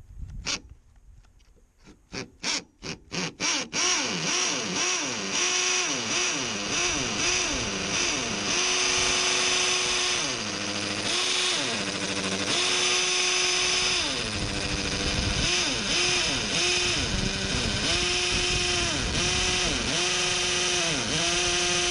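Ryobi 18V hammer drill boring into a concrete block wall. Several short trigger blips about two seconds in, then continuous drilling, the motor's pitch repeatedly dipping and recovering as it loads up in the block.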